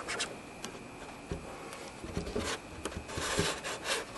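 Faint scattered rubbing, scraping and bumping handling noises, a few short ones early on and a denser cluster near the end, over a faint steady high whine.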